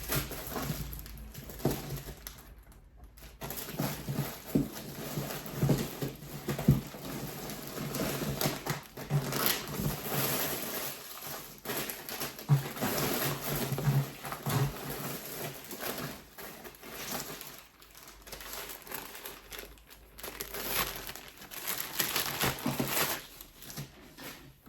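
Plastic packaging crinkling and rustling as it is handled, in a continuous irregular crackle with many small sharp peaks.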